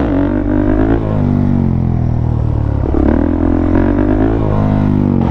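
Single-cylinder four-stroke engine of a 2009 Suzuki DRZ400SM supermoto being revved on the move, its pitch climbing in surges and dropping back several times.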